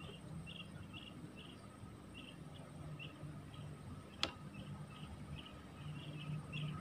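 A small bird chirping in short high notes, irregularly about two a second, over a faint low hum. A single sharp click comes about four seconds in.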